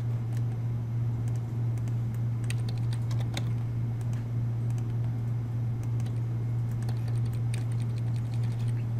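Computer keyboard keystrokes in short clusters, a few quick taps about two and a half seconds in and again around seven seconds in, as CAD commands are typed. A steady low electrical hum runs underneath.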